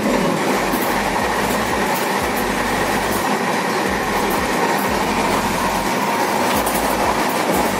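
Rajdhani Express passenger coach on the move, heard in the vestibule between coaches: a loud, steady rumble and rattle of the wheels on the track and the coach body.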